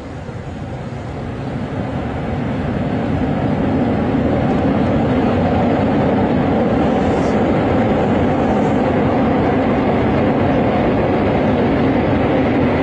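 Steady vehicle noise that swells over the first few seconds and then holds steady and loud.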